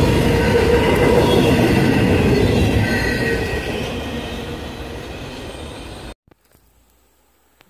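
Tail end of a double-stack intermodal freight train rolling away on the rails: a steady wheel rumble with faint high wheel squeals, fading as the last car moves off, then cut off abruptly about six seconds in.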